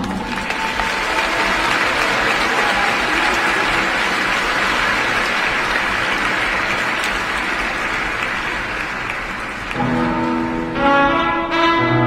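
Arena crowd applauding steadily. About ten seconds in, instrumental music starts.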